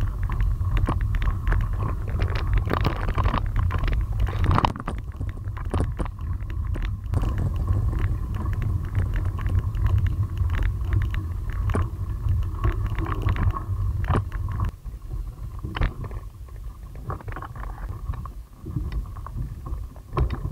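A bicycle ridden over a rough dirt and gravel road, heard from a camera on the bike: a heavy low rumble of wind and road buffeting the microphone, with frequent sharp rattles and knocks as the bike jolts over bumps. It eases a little about three quarters of the way through.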